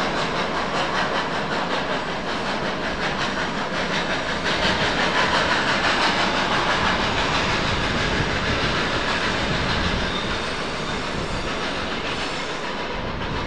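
Passenger train hauled by the ex-SNCF 141R 1244 steam locomotive rolling past, its wheels clattering rhythmically over the rails. The sound swells about four seconds in and eases off after about ten seconds.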